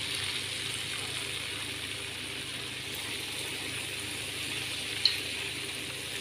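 Very hot clarified butter poured in a stream onto semolina, sizzling and fizzing in a steady hiss as it hits the flour; the butter is hot enough to boil on contact. A brief click about five seconds in.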